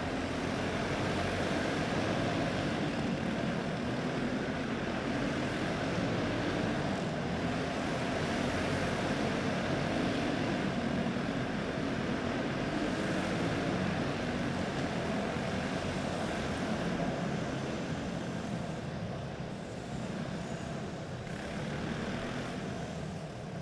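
Several racing karts with single-cylinder four-stroke clone engines running together at race speed, a steady drone whose pitch wavers up and down as they lap; it grows somewhat quieter near the end.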